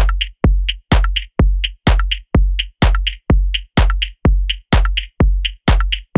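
Electronic dance music: a drum-machine beat with a deep kick drum about twice a second, each kick followed by a short, sharp high-pitched hit.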